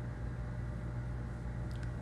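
Steady low hum of a room air conditioner, with a couple of faint ticks near the end.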